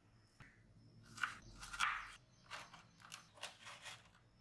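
Dry rice paper being cut with scissors: a run of crisp crackles and crunches as the brittle sheet snaps and cracks under the blades.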